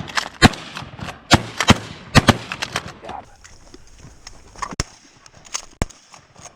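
Several shotguns fired at a passing duck: about five loud blasts in quick succession in the first two and a half seconds, followed by a few fainter sharp clicks.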